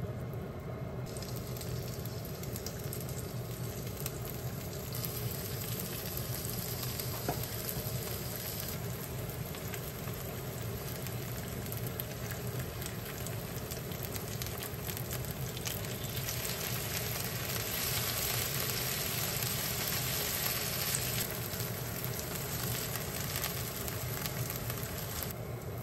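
Pieces of starch-dusted chicken breast sizzling as they fry in oil in a nonstick frying pan. The sizzle gets fuller about a second in as more pieces go in, and swells again partway through.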